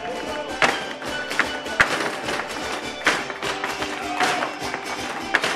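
Live folk string music on harp and guitars, with dancers' boots stamping on a stage floor in irregular sharp strikes about once a second.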